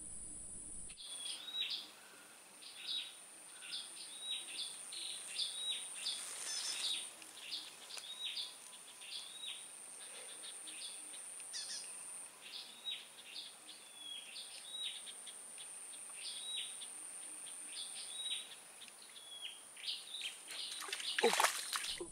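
A bird calling with a short chirp repeated about one or two times a second, over a steady high-pitched insect drone.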